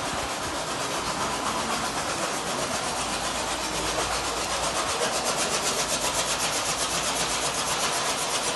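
A machine or engine running steadily, with a fast, even pulsing that sets in about halfway through.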